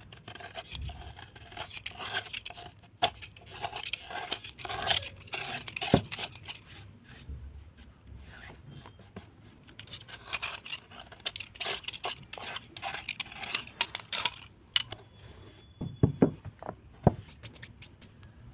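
Wet, crunchy scraping and rubbing of an overnight-soaked earthy lump: a dense run of short gritty scrapes and crackles. There is a lull partway through and a few sharper knocks, about six seconds in and again near the end.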